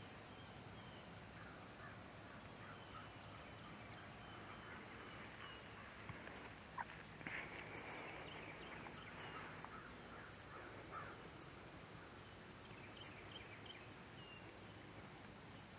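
Faint woodland ambience with scattered short bird calls. About seven seconds in there is a single sharp click, followed by a second or so of louder rustling noise.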